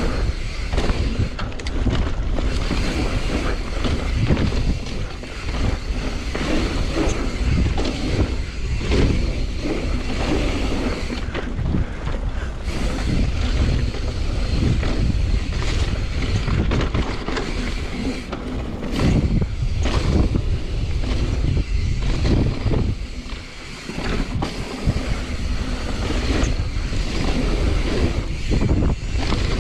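Wind rushing over the microphone of a mountain bike in motion, with tyres rolling on a dirt trail and frequent knocks and rattles from the bike over bumps.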